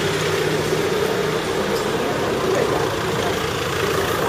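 A motor vehicle engine running steadily close by, with a constant low hum over street noise.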